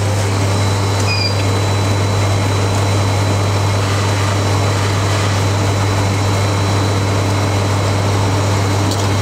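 Twin-compressor soft-serve ice cream machine running with a steady motor hum while ice cream is drawn from its nozzle into a cone.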